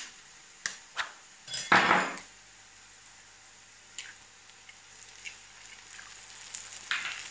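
A hen's egg being cracked on a nonstick frying pan: a few sharp taps and a short louder cracking noise in the first two seconds, then a few faint ticks as the shell is pulled open over the pan.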